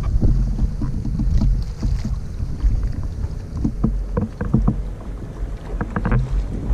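Wind buffeting the microphone aboard a sailing boat: a steady low rumble with scattered short knocks throughout.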